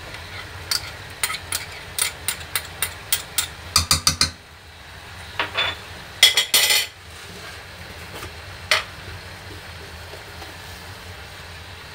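A metal spoon clinking and scraping against a bowl and the rim of an aluminium cooking pot: a quick run of about ten light clicks, then a few louder clatters and one last clink. A steady low hum runs underneath.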